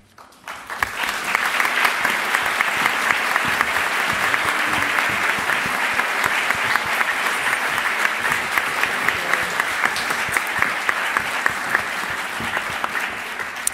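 Audience applauding: the clapping builds up about half a second in, holds steady, and thins slightly near the end.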